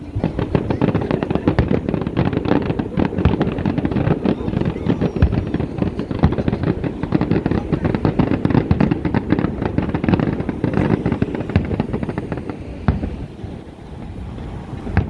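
Fireworks crackling: a dense, rapid run of pops and bangs that thins out after about twelve seconds to a few single pops.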